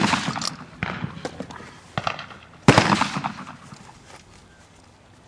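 Two loud shotgun shots, one at the start and one almost three seconds later, each dying away over about a second, with lighter sharp clicks between them.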